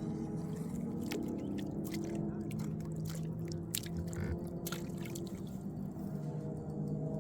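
Water splashing and sloshing beside a boat, with a run of short splashes and knocks through the middle, over a steady motor hum.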